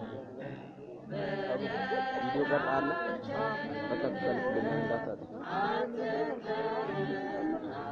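Voices singing a chant-like melody, with no speech.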